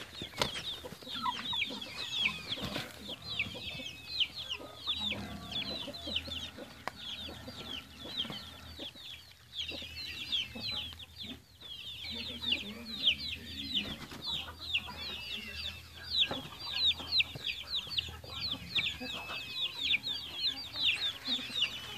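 Chickens peeping and clucking: a quick, constant run of high, short chirps, several a second, with no break.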